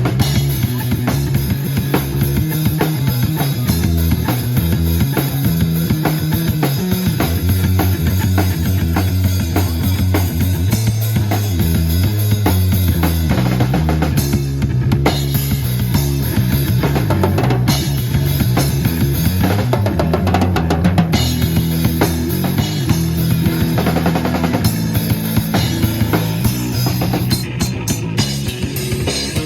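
Live rock band playing outdoors: a busy drum kit with bass drum and snare over a moving bass line, with guitar.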